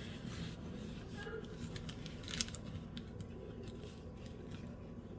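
Packaging and small plastic parts of a wireless microphone kit being handled during unboxing: scattered light clicks and rustles, with one sharper click about two and a half seconds in.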